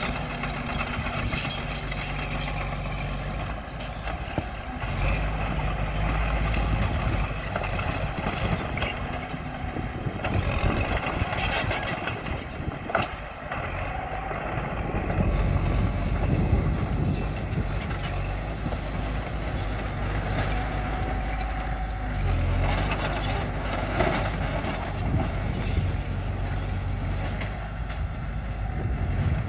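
Heavy diesel engine of a bulldozer working, running steadily with its pitch and load rising and easing off several times.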